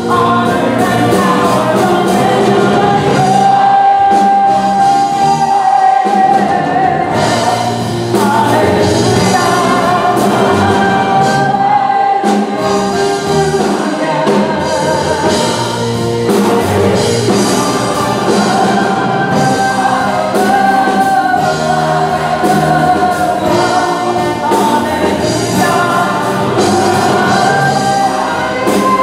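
A woman soloist singing a gospel song into a microphone, accompanied by choir and orchestra.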